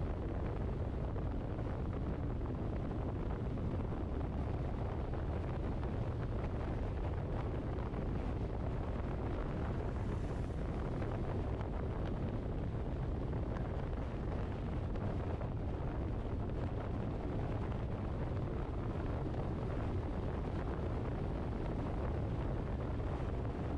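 Steady road and wind noise from a moving vehicle, a constant low rumble with wind on the microphone.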